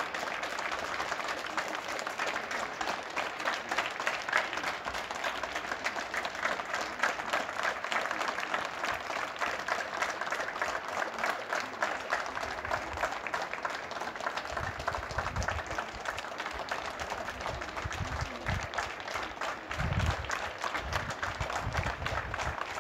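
Many people clapping together from the surrounding apartment blocks, a dense, steady applause. From a little past the middle there are irregular low rumbles underneath.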